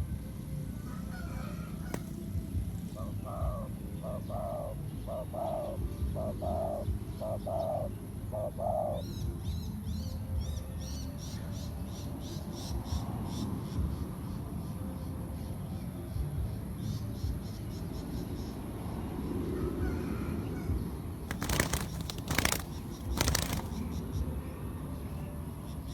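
A dove cooing, a run of about eight even low notes. Faint high chirps of small birds follow, and a few sharp knocks come near the end.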